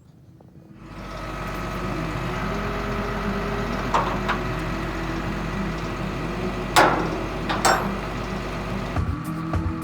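Truck engine running steadily, with a few brief sharp knocks over it.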